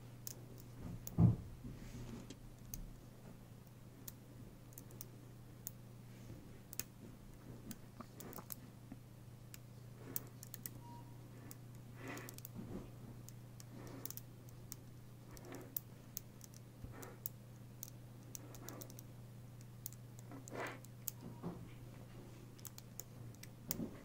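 Small neodymium magnet balls clicking and snapping together as they are handled and fitted into a cluster, light irregular clicks throughout over a steady low hum. A louder thump about a second in.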